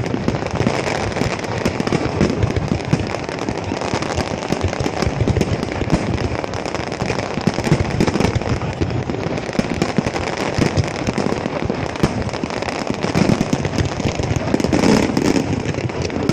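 Fireworks going off: a dense, unbroken stream of bangs and crackles overlapping one another.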